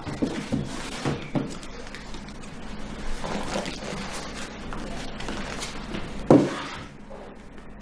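Books and files being pulled from a bookcase and handled: a few soft knocks and some rustling, then one loud thump about six seconds in.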